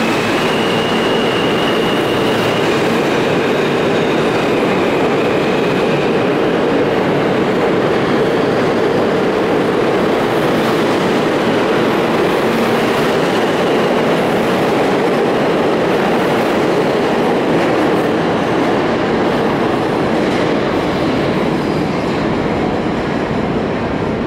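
New York City Subway R160B train departing the station and passing close by: the steady, loud noise of steel wheels running on the rails. A high electric whine from the propulsion is heard in the first several seconds. The sound eases slightly near the end as the last cars leave.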